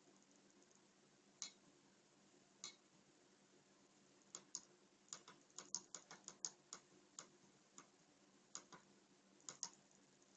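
Faint, irregular small clicks: a few single ones, then a quick run of about a dozen in the middle, then a few more. They sit over a faint steady low hum.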